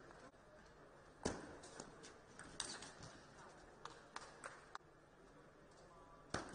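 Table tennis ball clicking in scattered sharp taps between points: a loud click about a second in, a quick run of three in the middle, and a loud click near the end as a serve is played.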